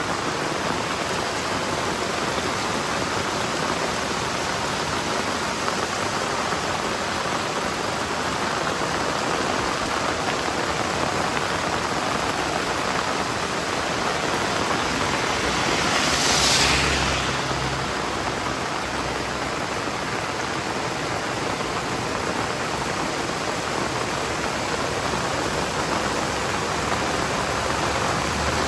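Heavy rain falling steadily, a dense even hiss. About halfway through it swells louder for a couple of seconds, with a low rumble under it.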